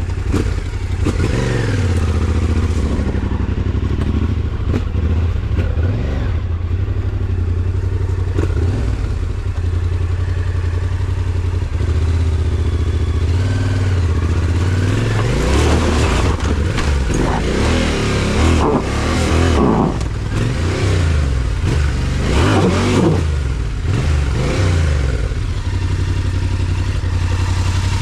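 Yamaha Ténéré 700's parallel-twin engine running under load on a muddy forest trail, the revs rising and falling again and again, most often in the second half.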